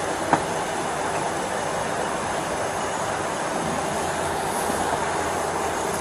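Steady rushing background noise picked up by a body-worn camera's microphone, with one faint click about a third of a second in.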